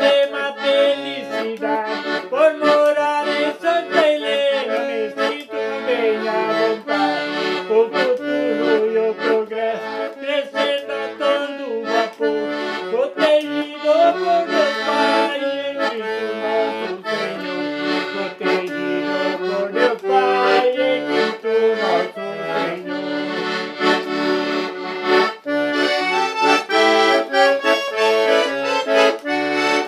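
Accordion playing a traditional tune, melody notes moving over a repeating bass accompaniment.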